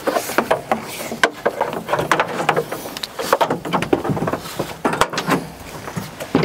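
Irregular run of clicks, clanks and knocks from metal parts and tools being handled on an old work truck.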